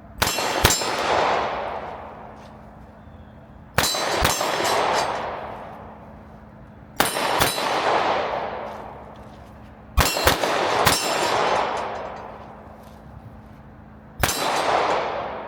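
Glock 47 9mm pistol fired in five short strings of one to three shots, a few seconds apart. Each string leaves a long fading echo, with a metallic ring that is typical of steel targets being hit.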